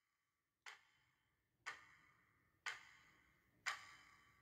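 Four sharp ticks, one each second, each a little louder than the last, every tick with a short ringing tail.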